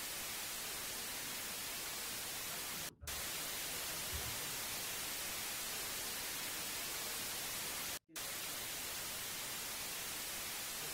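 Steady hiss of static, dropping out abruptly for a moment twice, about three seconds and about eight seconds in.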